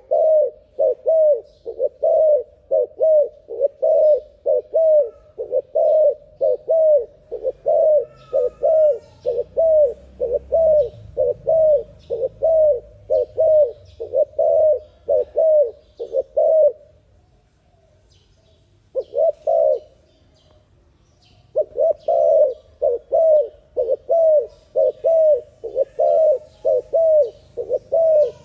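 Spotted dove (terkukur) cooing in a fast, unbroken run of short notes, about two a second. The run breaks off about two-thirds of the way through, with a brief pair of notes during the pause, then picks up again.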